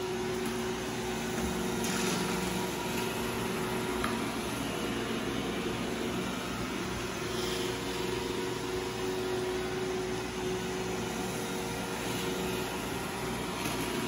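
iRobot Roomba i7 robot vacuum running: a steady motor and brush hum, with a couple of faint ticks about two and four seconds in.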